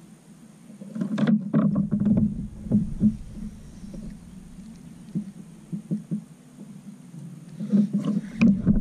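Wind buffeting the microphone, with a scatter of clicks and knocks from a fishing reel and rod being handled, busiest in the first few seconds and again near the end.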